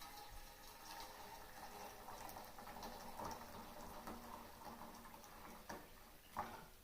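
Water poured steadily into a small pot, a faint trickling fill, with a couple of light knocks near the end.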